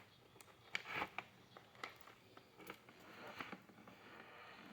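A few faint clicks and soft rustles as the untwisted wires of a Cat 6 cable are handled and slid into a plastic Ethernet connector.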